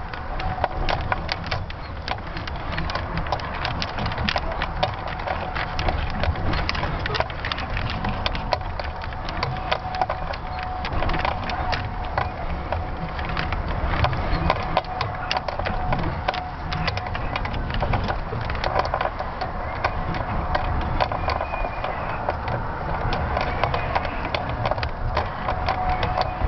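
Continuous crackling and rubbing with a low rumble, picked up by a camera fixed to a climbing balloon payload as it turns: the payload housing creaking and wind buffeting the microphone. A faint steady whine runs under it.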